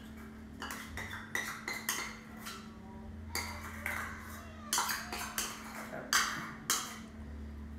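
A spoon scraping and knocking against a small metal bowl as crème fraîche is scraped out into a bowl of beaten eggs: a string of clinks and scrapes, the sharpest strikes coming about five to seven seconds in.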